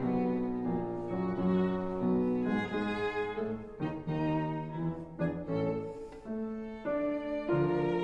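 Background music of bowed strings, violin and cello, playing a melody of held notes.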